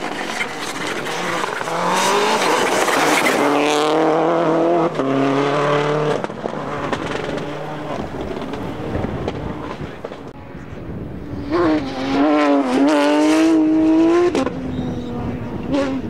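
Rally car engines at full throttle: a loud high-revving run from about two seconds in with a couple of gear changes, easing off, then a second loud burst of wavering revs about twelve seconds in.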